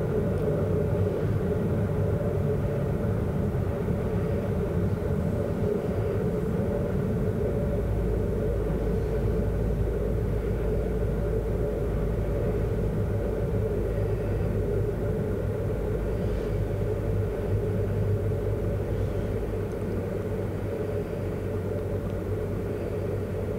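Cozy MKIV canard's rear-mounted pusher engine and the airflow, heard from inside the cockpit on final approach and into the landing flare: a steady drone with a low hum. It grows a little quieter near the end as the speed bleeds off in the flare.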